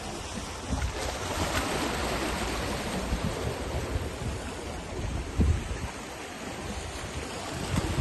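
Small waves washing and splashing against the boulders of a rocky seawall, with wind gusting on the microphone in low thumps.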